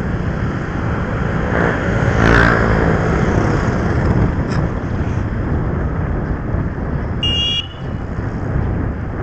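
Steady wind and road noise from riding along a street, with a motor vehicle passing loudly about two seconds in and a short high-pitched horn beep about seven seconds in.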